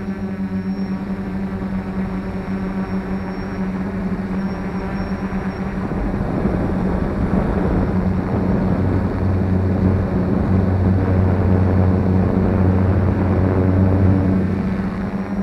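F450 quadcopter's electric motors and propellers running with a steady droning hum; from about six seconds in the sound grows louder and rougher with a rushing noise, then eases back near the end.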